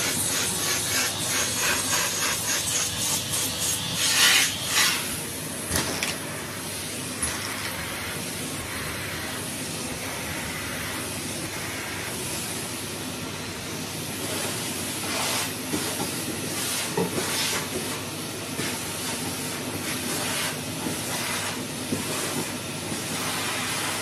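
Numatic Henry cylinder vacuum cleaner running steadily with its suction hiss as the nozzle works the carpet, with bursts of short rattling clicks in the first few seconds and again in the second half.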